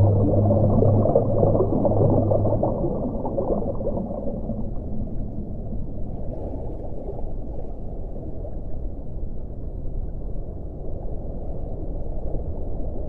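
Underwater ocean ambience: a muffled, steady rumble of water with no high sounds. A deep, steady moaning tone is held for the first two or three seconds, then dies away.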